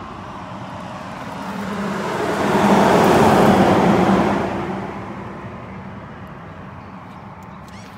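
A car passing by, its road noise swelling to a peak about three seconds in and fading away by about five seconds.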